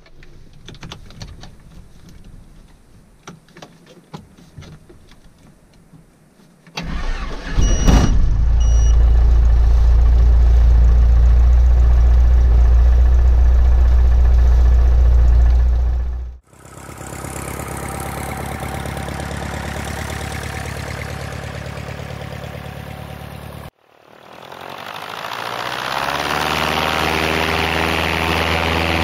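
Cessna 150's four-cylinder Continental engine being started cold after a preheat. A few faint clicks come first, then about seven seconds in the starter cranks briefly and the engine catches and runs loud and steady, heard from inside the cabin. After two cuts the same engine is heard at a lower level, then from outside with its power and pitch rising.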